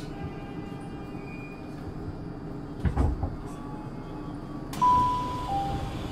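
Inside a Tokyu 5000 series commuter train standing at a station: a low thump about three seconds in, then near five seconds a sudden rush of air with a two-note falling door chime as the doors work.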